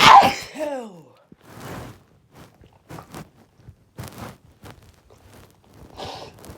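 A person sneezes once, loud and sudden, right at the start, the voiced end of the sneeze falling steeply in pitch. Then come a few short, quieter knocks and rustles, and a brief breathy sound near the end.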